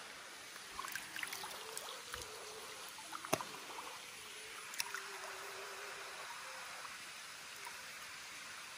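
Shallow water trickling and splashing lightly as hands work a fish out of a cast net, with a few scattered sharp clicks.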